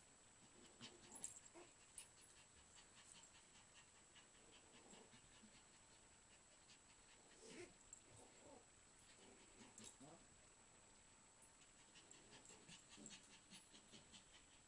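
Yorkshire terriers play-fighting over a plush toy, faint: panting and scuffling, with a few short vocal sounds and small ticks scattered through.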